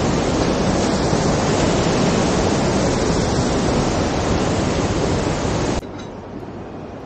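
Steady, loud rushing of a mountain river, cutting off suddenly near the end to a much quieter hiss.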